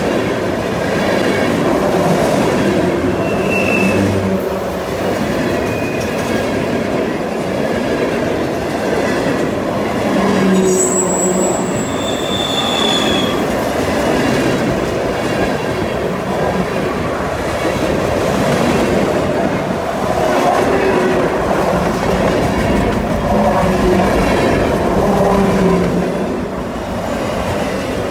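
Freight train cars rolling past through a curve: a steady loud rumble and clatter of steel wheels on rail, with short high wheel squeals coming and going, the strongest about ten to thirteen seconds in.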